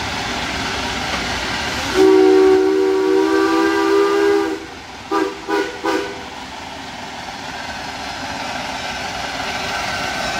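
Small steam locomotive sounding its chime whistle: one long blast, held as a chord, starting about two seconds in, then three short toots. Under it is the steady running of the engine as it approaches.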